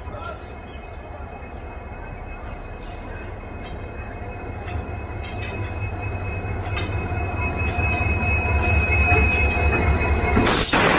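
WDP-4D diesel locomotive's EMD 16-cylinder two-stroke engine humming as it draws closer, the rumble growing steadily louder, with a thin steady high whine over it. A sudden loud rush of noise comes near the end.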